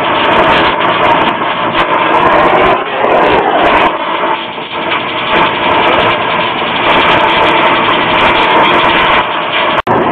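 Brazing torch flame burning with a loud, steady rushing noise as it heats the copper pipe joints of a replacement reversing valve. A steady machine drone runs underneath, and a falling drone passes about three seconds in.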